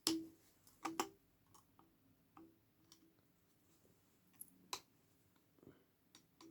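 Scattered light clicks and knocks of a hand tool against the transformer's metal, a few with a short low ring; the strongest comes right at the start and about a second in.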